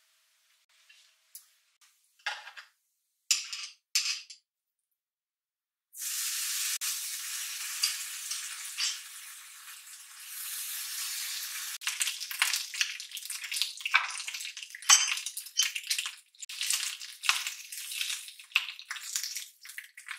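Bacon strips frying in a hot non-stick pan: a steady sizzling hiss sets in about six seconds in, and from about halfway it crackles and pops busily. A few short clicks come before the sizzling starts.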